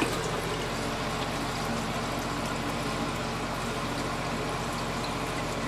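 Toilet tank and bowl refilling after a flush: a steady hiss of water running in through a newly fitted Korky universal fill valve.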